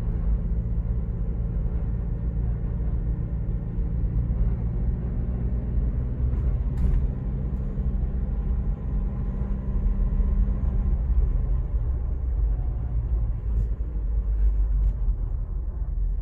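2022 Ford Bronco Badlands driving, heard from inside the cabin: a steady low rumble and drone with a cyclic grinding noise, like a washing machine cycle or a scraping of ice. It is present with neither clutch nor brake applied, so the driver rules out brakes and clutch as its cause.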